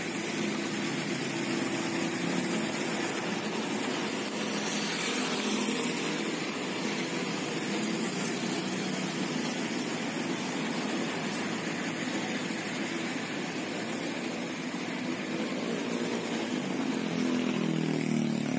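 Diesel engines of heavy road-construction machinery running steadily, with a mechanical drone that grows a little stronger near the end.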